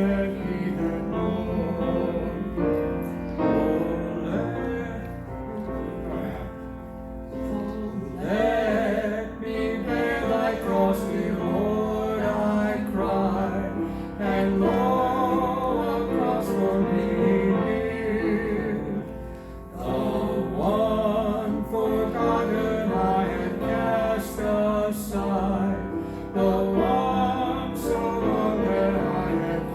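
A gospel song in a church service: sung with vibrato over steady instrumental accompaniment.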